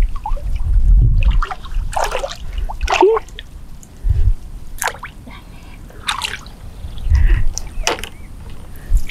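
Shallow water splashing and dripping as a person wades knee-deep and works with her hands along a grassy bank. There are short separate splashes about once a second and low sloshing from legs moving through the water.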